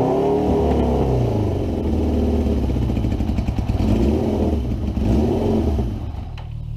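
Suzuki GS550 air-cooled inline-four motorcycle engine running, its pitch rising and falling as it is revved unevenly and easing off near the end. The bike sounds bad, and the owner suspects not enough petrol is getting through.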